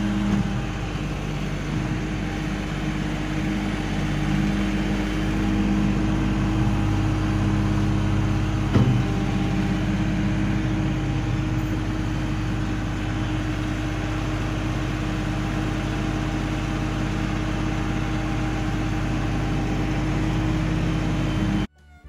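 Kioti DK6010 compact tractor's diesel engine running steadily as its loader bucket pushes soil, its pitch shifting a little partway through. A single sharp knock about nine seconds in.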